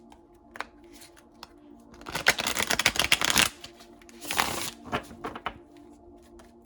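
Tarot cards being shuffled by hand: a dense rush of card edges for about a second and a half, a shorter burst about a second later, and scattered single card clicks around them.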